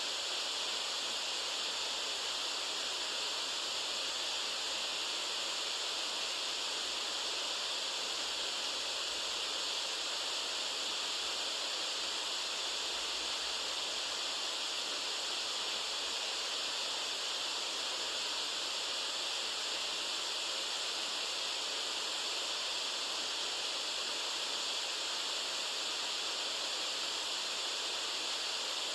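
White noise for sleep: an even, unchanging hiss, strongest in the high range and thin in the bass.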